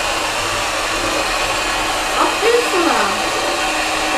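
Handheld electric mixer running steadily, its beaters whisking eggs and sugar in a mixing bowl.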